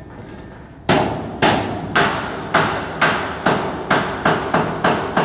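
Hammer blows on the steel frame and corrugated sheet-metal wall of a mesh cage: about ten sharp strikes, roughly two a second and quickening near the end, each dying away briefly.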